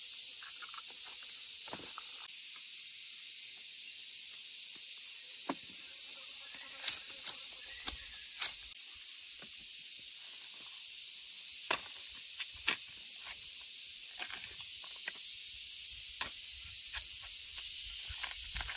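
Steady high-pitched outdoor hiss with scattered sharp clicks and snaps.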